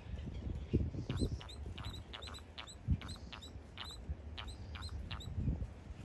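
White terns calling: a quick series of about a dozen short, high, clipped notes, two or three a second, starting about a second in.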